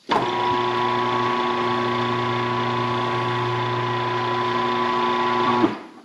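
Tire changer's electric turntable motor running with a steady hum, turning the steel wheel while the tire bead is worked onto the rim; it starts at once and stops about five and a half seconds in.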